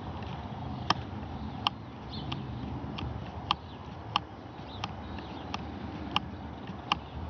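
Faint, steady low rumble of a Boeing 747-8F's GEnx engines cruising at high altitude. Over it, a sharp short click or chirp repeats about every two-thirds of a second; these clicks are the loudest thing heard.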